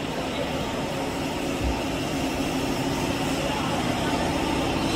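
Steady drone of workshop machinery: an air compressor and water-pumping machines running continuously, a constant hum under an even noise.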